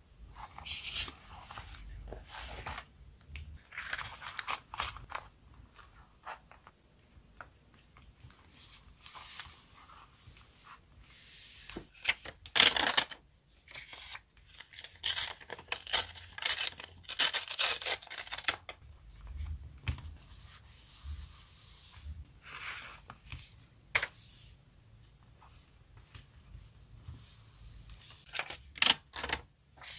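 Paper handling close up: watercolour memo sheets rustled, torn apart and rubbed down onto notebook pages, in irregular bursts of tearing and rustling, busiest and loudest around the middle.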